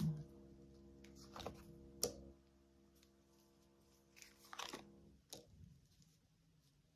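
Tarot cards handled on a table: a few soft clicks and rustles, with one sharp tap about two seconds in, over a faint steady hum.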